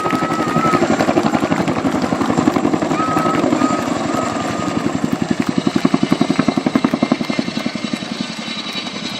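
Boeing Chinook tandem-rotor helicopter hovering close by, its two rotors beating out a rapid, steady blade slap. A wavering high whistle sounds over it twice in the first half.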